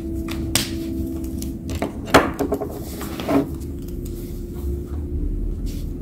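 Pens set down on a desk and sheets of paper handled: a few sharp clicks and knocks, the loudest about two seconds in, over a steady low hum.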